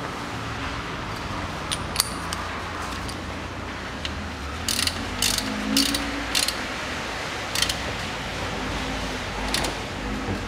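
Ratchet wrench clicking in short bursts as a manual gearbox drain plug is screwed back in and tightened: a few clicks about two seconds in, a quick run of about five clicks midway, then single clicks later.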